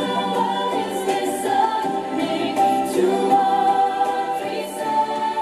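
A song sung by several voices together, with a choir-like sound, carrying on steadily.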